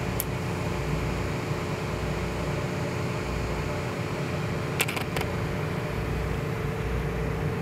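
Steady low hum of a fishing boat's engine running, with a faint steady tone over it; a few light clicks about five seconds in.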